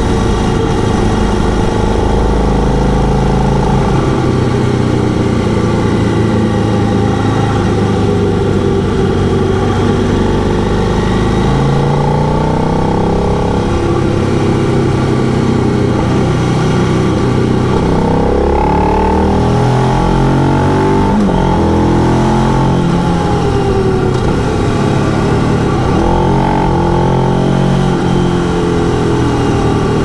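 KTM 990 Adventure's V-twin engine under way on the road, its pitch rising and falling with the throttle. In the second half it climbs through the gears several times in quick succession, as when accelerating hard to overtake.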